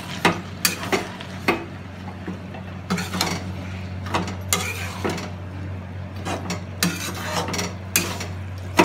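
A ladle stirring a kadhai full of Malabar spinach greens, with irregular scrapes and clinks against the pan's metal side, over a steady low hum.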